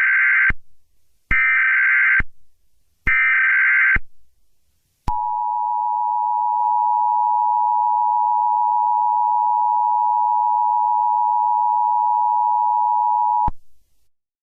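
Emergency Alert System tones: three roughly one-second bursts of the SAME data header, a warbling digital screech, followed by the two-note EAS attention signal held steady for about eight seconds before it cuts off abruptly.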